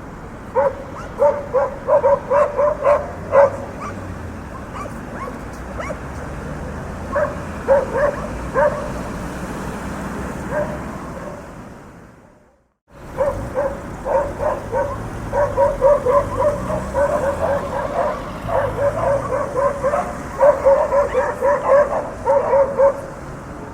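Dogs barking in quick runs of short barks over a steady background of street traffic. The sound fades out to silence about twelve seconds in and comes straight back, with the barking denser afterwards.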